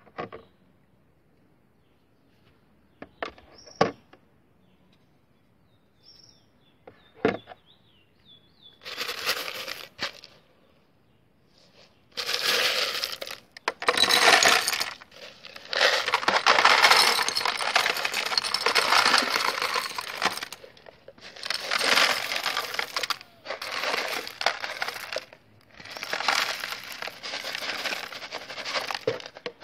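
A few sharp knocks as pieces of clay roof tile are set down in a plastic container, then crushed stone gravel poured in, rattling and clattering onto the tile and plastic in several long bursts.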